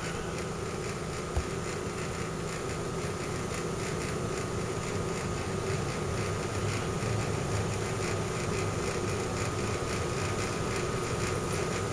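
A steady, low mechanical hum with no change in pitch, and one small click about a second and a half in.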